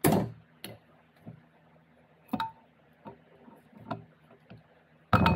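Steel gear-set parts of an NP242 transfer case clinking and knocking together as they are handled: a string of sharp metallic clicks at uneven intervals, the loudest right at the start and near the end, one about halfway through ringing briefly.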